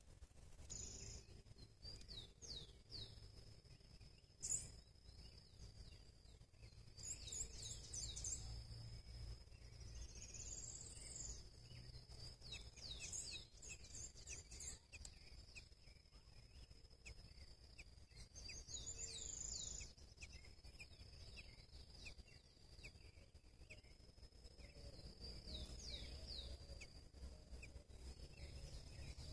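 Faint bird calls: clusters of quick, short downward-sliding chirps come several times over a steady high-pitched tone. A single brief click sounds a few seconds in.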